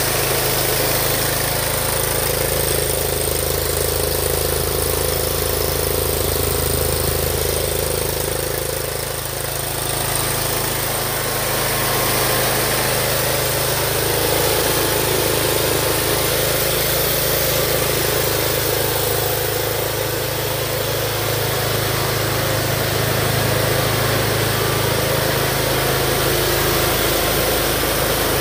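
2012 John Deere Z916B zero-turn mower's engine idling steadily, with a slight dip and return in its note about nine seconds in.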